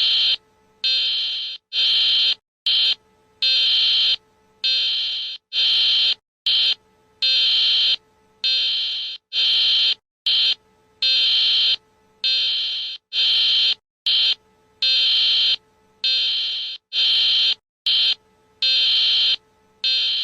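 Electronic alarm sounding in loud, high-pitched buzzing bursts, roughly one a second and uneven in length, with short silent gaps between them.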